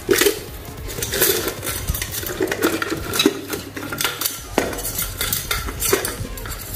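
Small RC model parts being picked up and set down on a hard surface: an irregular string of clicks, taps and light clatter.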